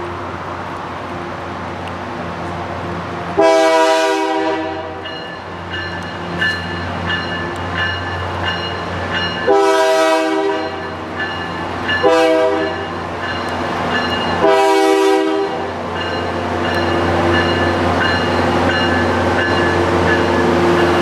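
Brookville BL20GHM diesel locomotive sounding its multi-chime air horn in four blasts, long, long, short, long: the standard grade-crossing signal. The diesel engine runs steadily underneath, and near the end the wheels roll past on the rails as the locomotive and coaches go by.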